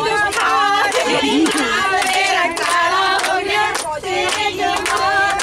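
A group of women singing Punjabi boliyan in chorus, with hand-clapping in a steady beat keeping time.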